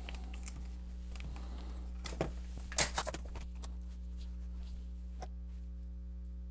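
Acer C720 Chromebook being turned over and set down on a work mat: a few short knocks and clatters about two and three seconds in, the loudest just before the three-second mark, over a steady low hum.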